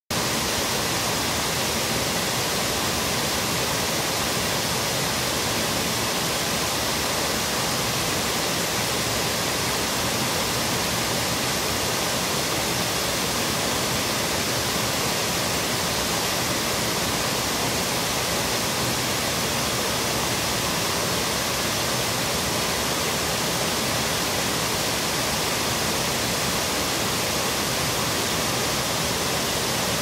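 Water pouring over a low river weir into the pool below: a steady, unbroken rush with plenty of hiss.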